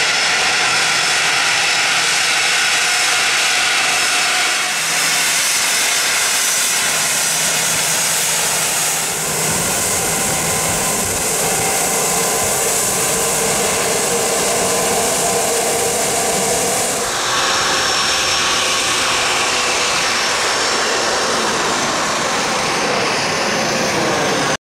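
Twin rear-mounted turbofan jet engines of a Gulfstream business jet: a steady high whine while taxiing, then the louder, deeper noise of takeoff power as it climbs away. The sound changes suddenly about 5, 9 and 17 seconds in.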